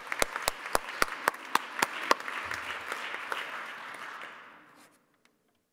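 Audience applause with one person's loud, evenly spaced claps close to the podium microphone, about four a second. The close claps stop about two seconds in, and the applause dies away near the end.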